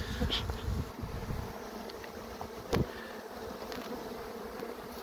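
Honeybees buzzing around an open hive: a steady, even hum, with one short click a little past halfway.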